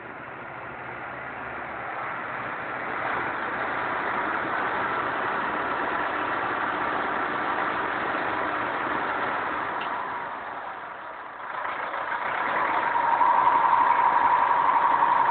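Caterpillar 120G motor grader's diesel engine running close by, growing louder over the first few seconds. It drops briefly about eleven seconds in, then comes back louder with a steady whine.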